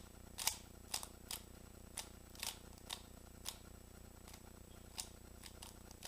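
Rubik's cube being turned by hand: a series of sharp plastic clicks as its layers snap round, several in quick succession in the first second or so, then more spaced out.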